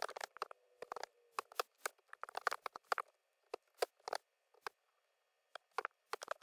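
Computer keyboard typing: quick, irregular runs of key clicks as code is entered, with a pause of about a second before a last few keystrokes near the end.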